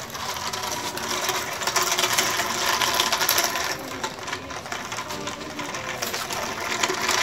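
Toy plastic pickup truck dragged on a string over dirt and pebbles, its plastic wheels and body rattling and scraping in a steady crackle.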